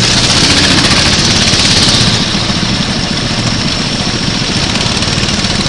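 Kart engine running, a little louder for the first two seconds and then easing slightly.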